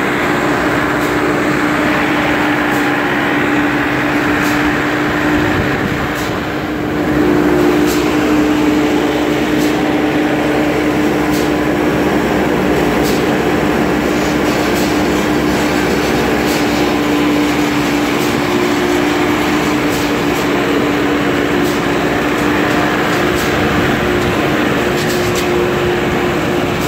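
New Holland skid steer loader's diesel engine running steadily as the machine drives, with a constant whine over the engine. The sound dips briefly about six seconds in, then comes back louder, with scattered light clanks.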